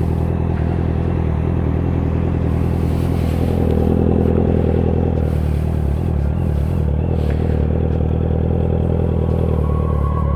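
Honda CBR650F's inline-four engine running steadily, its pitch holding nearly constant with no revving.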